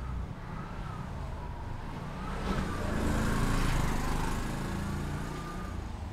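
A motor vehicle drives past close by, growing louder to a peak a little past the middle and then fading. A siren wails slowly up and down in the background.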